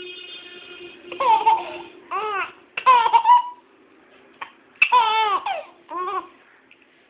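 Baby laughing in about five short bursts of high, squealing giggles that swoop up and down in pitch, the loudest about three seconds in.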